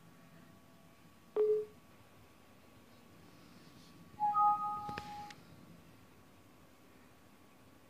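Windows 7 warning chime, two notes with the higher joining the lower, as a warning message box pops up about four seconds in, with a sharp click just after. Earlier, about a second and a half in, a short single low beep with a click.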